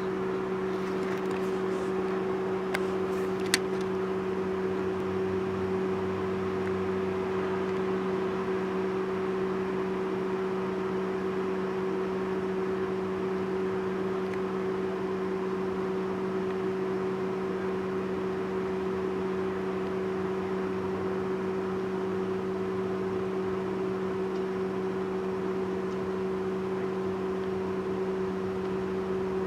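Steady mechanical hum holding one constant pitch throughout, with two short clicks about three seconds in.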